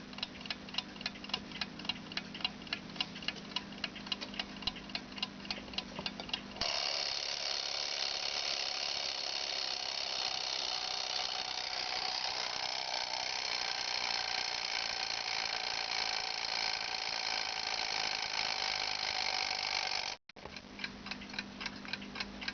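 Brazilian mechanical alarm clock ticking quickly, then its alarm going off about six seconds in: a steady, continuous bell ring for about thirteen seconds that cuts off suddenly, after which the ticking resumes.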